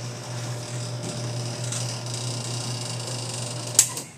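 Electric motor of a powered chiropractic table running steadily for about four seconds as the table moves with the child on it, a low hum with a hiss above it that stops with a sharp click near the end.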